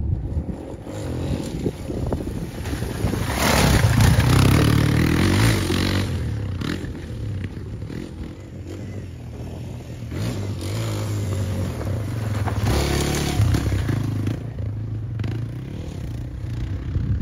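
Kawasaki KLX230RS dirt bike being ridden off-road, its 233cc air-cooled single-cylinder four-stroke engine pitch rising and falling with the throttle. It is loudest about four seconds in and swells again about three-quarters of the way through.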